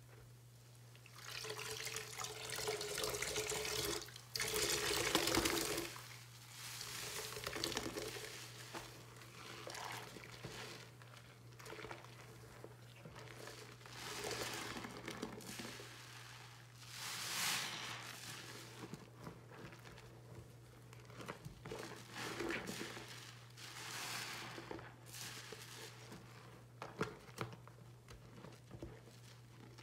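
A soap-soaked sponge squeezed and wrung in a sink of foamy water: wet squelches and splashes in repeated surges every two to three seconds, over a steady low hum.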